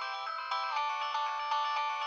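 Nokia 6030 ringtone playing: a synthesized electronic melody of short stepped notes over held chords, with nothing in the bass.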